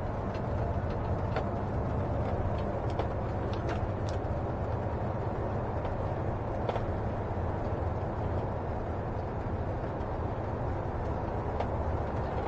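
Steady road and drivetrain noise inside the cab of a Tiffin Allegro Bus motorhome cruising at highway speed, with a few faint clicks scattered through it.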